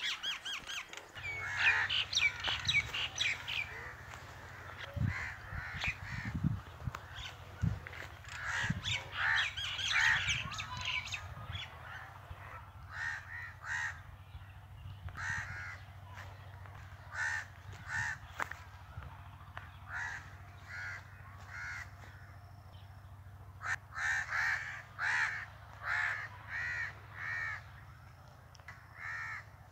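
Birds calling in short repeated calls: a dense flurry in the first few seconds, then about one call a second through the second half. Under them runs a steady low hum, with a few low thumps in the middle.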